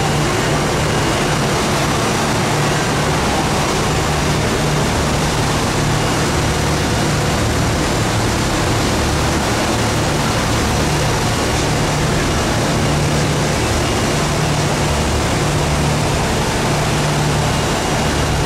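Motorboat running at speed: a steady low engine drone that swells and dips slightly, over the continuous rush of water churning in the wake.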